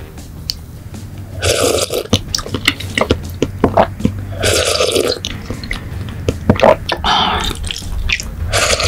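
Close-miked slurping of a thin, grainy liquid from a spoon: four slurps of about half a second each, with small wet mouth and spoon clicks between them.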